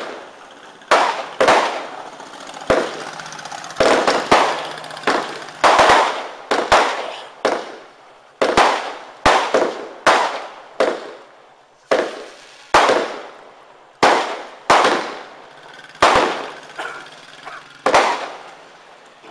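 A 120-shot roman candle fireworks cake firing shot after shot, one sharp bang every half second to second, each fading away quickly.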